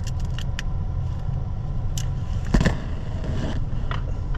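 A Ford F-250 pickup's engine idling, heard from inside the cab, with light metallic clicks of sockets being tried on the steering-column bolts and a louder knock a little after halfway.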